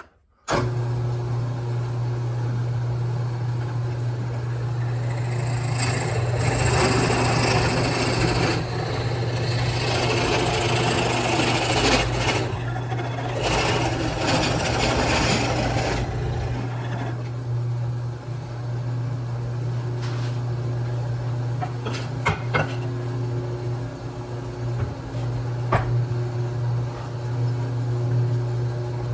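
Electric power tool motor starting suddenly and running steadily while it cuts into wood, with a louder, rougher stretch of cutting from about 6 to 16 seconds in and a few short clicks later on.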